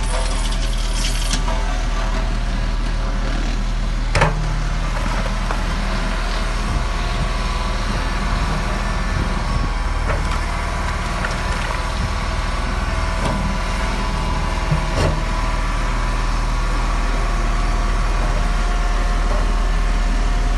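Hydraulic excavator's diesel engine running steadily during wall demolition, with a clatter of falling masonry in the first second or so and two sharp knocks, about four and fifteen seconds in.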